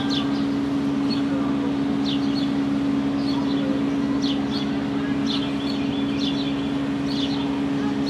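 A machine running with a steady, unchanging hum, while small birds chirp in short repeated calls several times.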